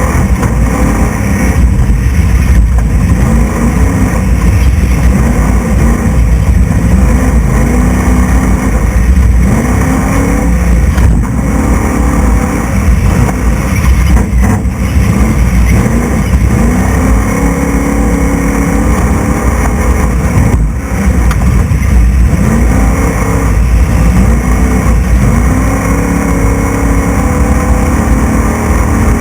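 Class 6100 desert race truck's engine heard from on board at racing speed, revs climbing and falling off again every couple of seconds, over a heavy, steady low rumble.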